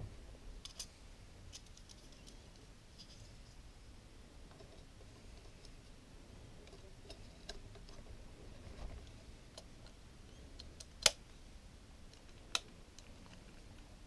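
Small clicks and taps from handling a Lomography LC-A+ camera as its front cover plate is pressed back onto the body, with two sharp clicks about a second and a half apart near the end.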